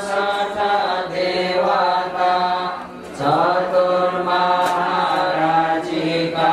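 Buddhist Pali chanting: a melodic, intoned chant in long drawn-out phrases over a steady low tone, amplified through a microphone, with a short breath pause about three seconds in.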